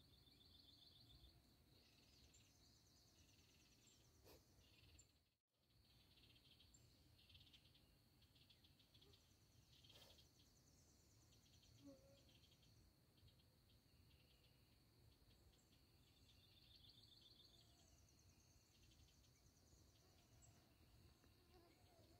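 Near silence: faint woodland ambience, with distant bird trills repeating on and off over a thin steady insect hum. The sound drops out completely for a moment about five seconds in.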